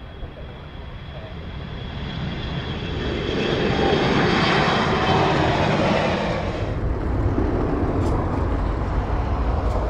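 Business jet with twin rear-mounted turbofans at takeoff thrust, climbing out after lift-off. The jet roar builds over the first few seconds and peaks near the middle. About two-thirds of the way through the hiss drops away, leaving a low rumble as the jet draws off.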